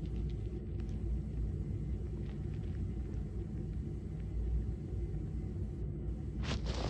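A sleeping man snoring: a low, steady rumble, with a breathy rush of air near the end.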